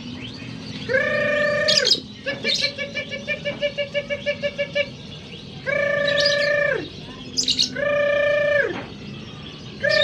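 Caged birds calling: four held, steady, low-pitched calls about a second long, each dropping at the end, with a fast run of quick repeated notes at the same pitch after the first. Short, very high chirps come in around them.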